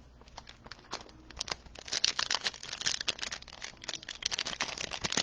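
A trading card pack's foil wrapper crinkling and tearing as it is opened: a rapid run of crackles, sparse at first, growing denser and louder about a second and a half in.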